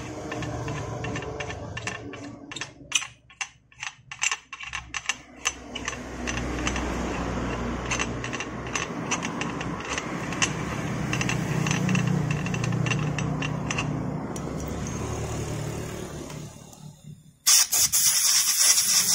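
A hand tap in a T-handle tap wrench clicking quickly as it is turned, re-cutting the worn threads of a motorcycle's exhaust-mount bolt hole, over a steady mechanical rumble. Near the end comes a short, loud hiss of air blown at the hole.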